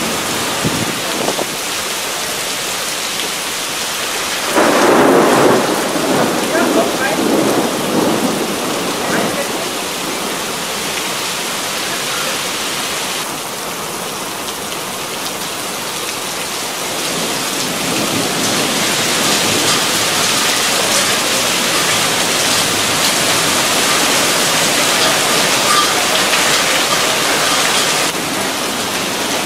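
Heavy thunderstorm rain pouring onto pavement and a terrace roof, a dense steady hiss. A rumble of thunder swells in about five seconds in and fades over several seconds. The downpour grows louder and hissier in the second half.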